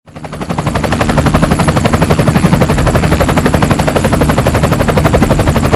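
Helicopter rotor blades beating in a fast, steady rhythm of about nine beats a second, fading in at the start and then holding steady.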